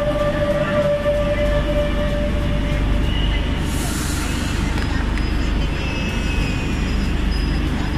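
Metro train at the platform: a steady low rumble with an electric whine that fades out about three seconds in as it comes to rest. A short hiss of air follows about four seconds in, then a faint high steady tone.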